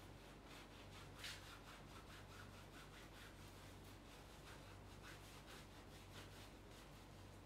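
Cloth scrubbing back and forth against the legs in quick, even strokes, faint, over a low steady hum.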